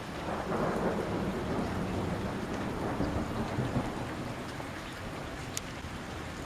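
Thunder rumbling over steady rain: it swells about half a second in, rolls for about four seconds and dies away, leaving the rain hiss. One sharp tick comes near the end.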